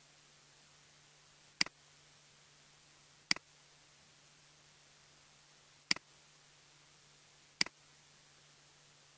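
Computer mouse clicking four times, a second or two apart, each click a quick press and release, over a faint steady hiss with a low hum.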